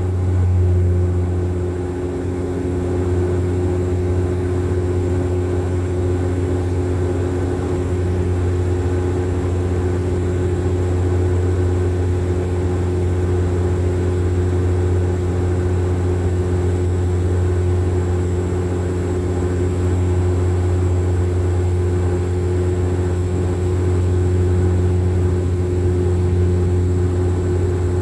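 Cabin noise of a Bombardier turboprop airliner climbing after takeoff: a steady propeller drone with a strong low hum and a few steady higher tones above it.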